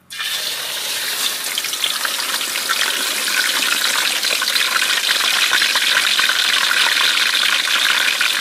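Whole scored tilapia deep-frying in a wok of hot oil, sizzling and crackling loudly. The sound starts suddenly as the fish goes into the oil, grows a little louder over the first few seconds, then holds steady.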